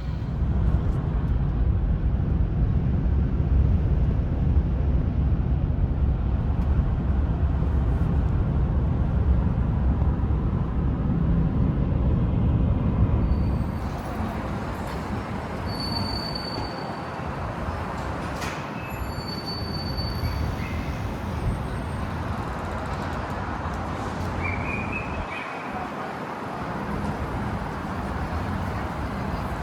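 A train running with a loud, steady low rumble; about thirteen seconds in it drops to a quieter running noise, with a few short high beeps and a brief rising tone later on.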